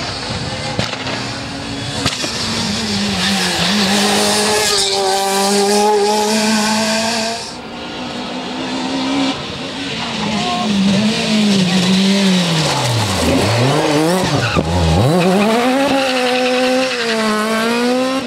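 BMW 3 Series Compact rally car driven hard on a tarmac stage. The engine revs high through the gears and drops off when the driver lifts. The revs fall sharply and climb again twice as it takes a corner, then it accelerates away in several rising pulls through the gears.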